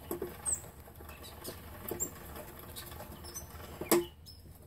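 The crank, roller chain and sprockets of an early-1980s Ertl John Deere 520 pedal tractor, turned by hand, giving scattered light clicks and short squeaks. The cranking stops with a louder knock about four seconds in.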